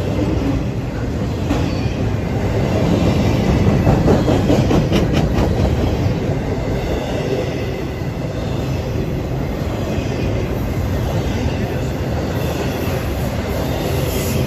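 An intermodal freight train of semi trailers riding on flatcars passing close by: a steady rumble and rattle of steel wheels on rail, with a faint high wheel squeal. It swells loudest a few seconds in, with a short cluster of clanks around then.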